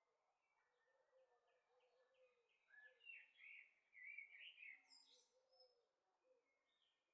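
Faint birdsong: a cluster of quick chirps, loudest about three to five seconds in, over softer repeated low calls.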